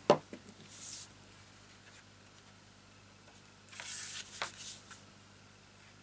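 A sharp tap on the desk, then soft paper rustles. Near the middle, cardstock slides and rustles as a glued black layer is laid onto a folded card base and pressed down.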